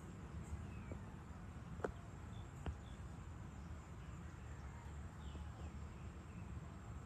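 Outdoor ambience: a steady low rumble with a few faint bird chirps scattered through it, and two sharp clicks just under a second apart about two seconds in.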